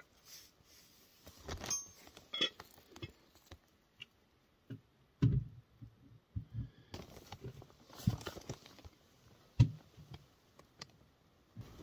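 Wood shavings being lit and handled, then pushed by hand into a small metal wood stove: scattered small crackles, clicks and soft knocks with quiet gaps between them.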